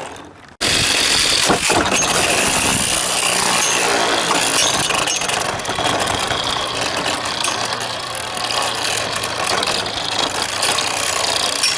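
Spinner M.A.D battle tops spinning with a steady, dense whirring. It drops out briefly just after the start, then comes back suddenly and keeps going.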